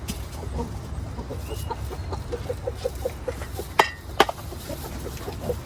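Farm animals in a pen giving a run of short, soft, quick calls, about four or five a second, with two sharp clicks a little before halfway.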